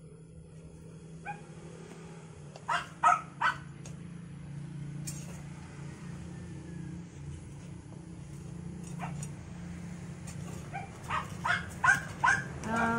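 Dog barking: three quick barks about three seconds in, then a faster run of about six barks near the end, over a steady low hum.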